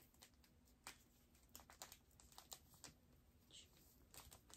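Faint, scattered light ticks and scratches of a black marker writing on a bag of diamond-painting drills, with a brief higher squeak about three and a half seconds in.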